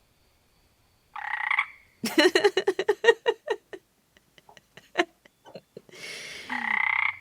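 Comic sound effects: a short squeaky tone, then a rapid croaking rattle of about eight pulses a second, a few scattered clicks, and another squeaky tone near the end.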